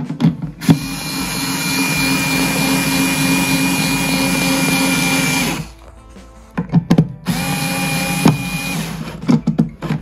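Cordless drill-driver running for about five seconds, driving a screw into the plywood of a solar dryer. It stops, a few knocks follow, then a second shorter burst comes about seven seconds in, with clicks near the end.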